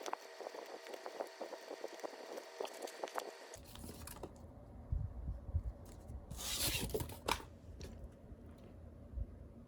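Packaging being handled during an unboxing: a run of small crinkling clicks, then, a little past the middle, a longer scraping, tearing rustle lasting about a second.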